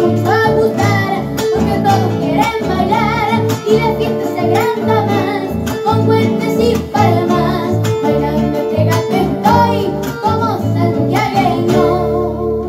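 Young boys singing an Argentine gato, a folk song, to a strummed nylon-string acoustic guitar keeping an even, lively strumming rhythm.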